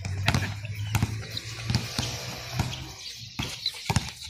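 Irregular thuds of a basketball being dribbled and players' shoes on an outdoor hard court. Underneath is a steady low hum that stops about three seconds in.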